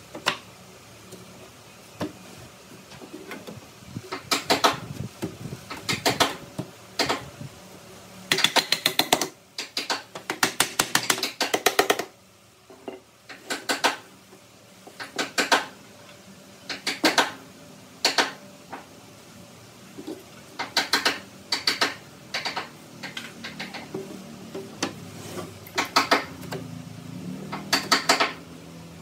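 Pneumatic brad nailer firing sharp shots into wood, in quick bursts of several shots with pauses between, fastening frame strips to a plywood panel. A low steady hum comes in near the end.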